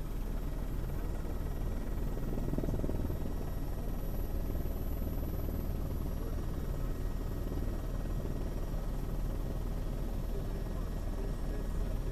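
Steady low drone of a helicopter's engine and rotor, recorded from on board the aircraft.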